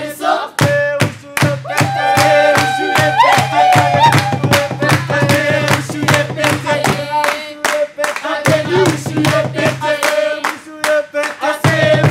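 A group of waiters singing an upbeat song together, with rhythmic hand clapping and a low held note underneath that drops out twice.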